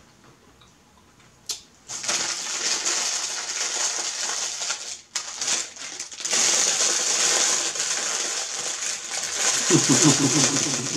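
A thin clear plastic bag being crumpled and handled, a dense crinkling that starts about two seconds in and breaks off briefly around the middle. A voice sounds near the end.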